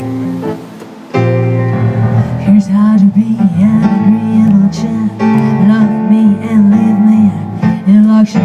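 Live jazz music from a small band in a passage without lyrics. It is sparse and quieter at first, then fills out fully about a second in, with a busy low melodic line from about two and a half seconds.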